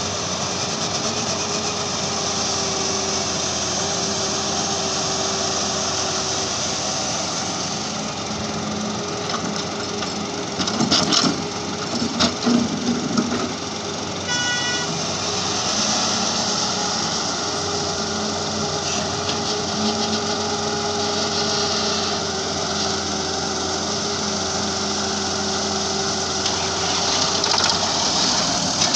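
Diesel engines of a Halla wheeled excavator and nearby tractors running steadily under load. There is a burst of louder clattering and thudding around eleven to thirteen seconds in, and a short high tone just after.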